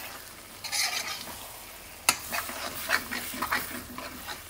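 Metal spoon stirring and scraping an onion, tomato and spice masala around a wok while the oil sizzles steadily underneath, with a sharp clink of spoon on pan about two seconds in.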